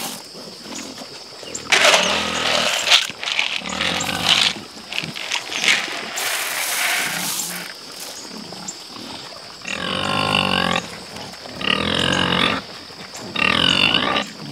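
Hungry pigs squealing at feeding time: loud, harsh squeals in the first half, then three shorter, higher squeals near the end.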